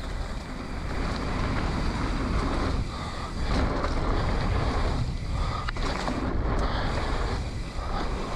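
Wind rushing over a helmet-mounted camera's microphone while a mountain bike rolls down a dirt trail at speed: a dense, rumbling rush that swells and dips.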